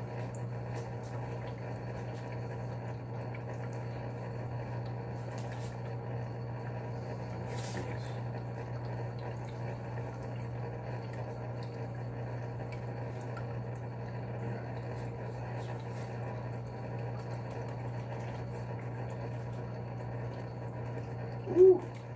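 Steady low hum with running-water noise from aquarium equipment. About half a second before the end, one short loud pitched sound.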